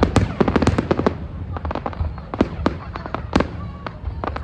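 Fireworks going off: a dense run of rapid crackling pops in the first second, then scattered sharp bangs every half second or so.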